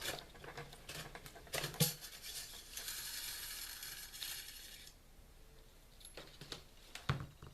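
Metal parts of a Mossberg 590 pump shotgun being handled during field stripping, giving scattered sharp clicks and clinks. About a third of the way in there is a steady scraping slide of metal on metal that lasts about two seconds.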